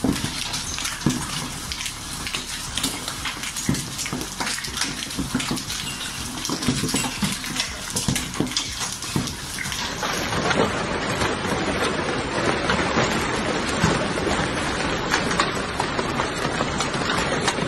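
Hailstorm: hailstones pelting down on paving and an awning in heavy rain, a dense clatter of many small, sharp impacts over a steady hiss. About ten seconds in it turns into a denser, more even hiss of falling hail and rain.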